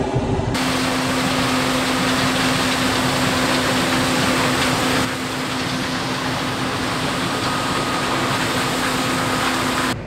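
Combine harvester running: steady engine and fan noise with a constant low hum. The sound changes abruptly about half a second in and again around five seconds.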